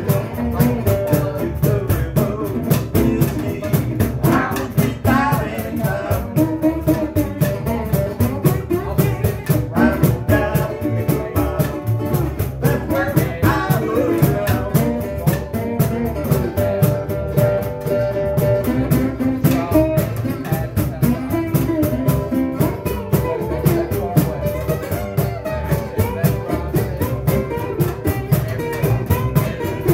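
Small acoustic band playing live: upright double bass and guitars, with a cajón keeping a steady beat.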